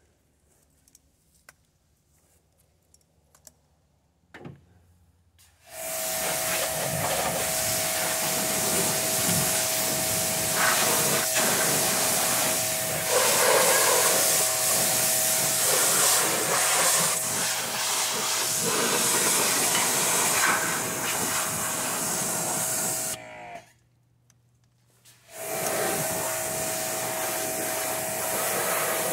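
A pressure washer spraying a muddy side-by-side: a loud, steady hiss of water with a constant motor whine in it. It starts about six seconds in, cuts out for about two seconds near the end as the trigger is let go, then starts again.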